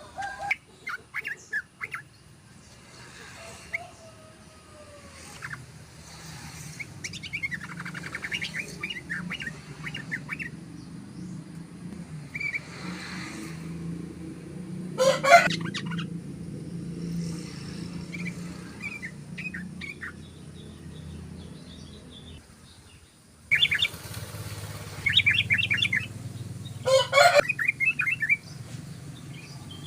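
Yellow-vented bulbuls (trucukan) singing in short, rapid chattering phrases that come again and again, with two louder bursts, one about halfway through and one near the end.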